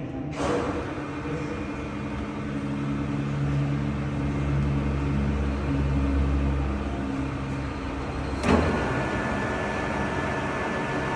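Metal lathe running with a steady mechanical hum, with a short knock about half a second in and a louder clunk at about eight and a half seconds, after which the running note changes and a higher steady whine appears.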